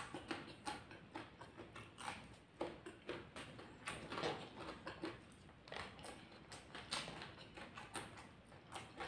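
Close-miked chewing of raw bird's eye chillies and fried rice: irregular crunches and wet mouth clicks, a few a second.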